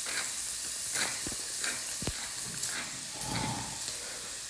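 Bacon lardons sizzling and frying in a pan, a steady hiss, with a wooden pepper mill being twisted over a bowl, grinding with a few faint crackling ticks.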